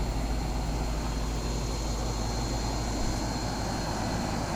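1996 Janitrol central air-conditioner condensing unit running steadily: a low compressor hum under the even rush of the condenser fan.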